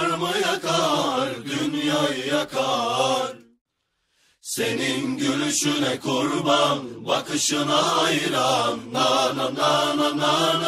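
Chant-like vocal music, several voices singing over a steady low drone. The sound cuts out completely for about a second about a third of the way in, then the singing resumes.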